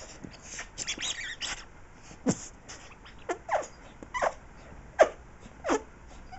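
Puppy chewing a rubber toy with its squeaker taken out, squeezing air through it in about six short fart-like blasts that drop in pitch, with chewing and rustling before them.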